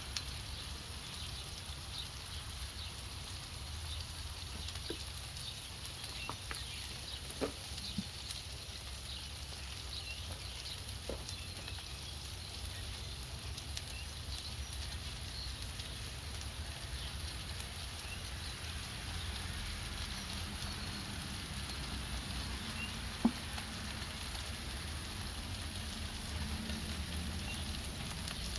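Meatloaf burger and bun frying on the cooking surface: a steady sizzle with fine crackling, and a few light clicks.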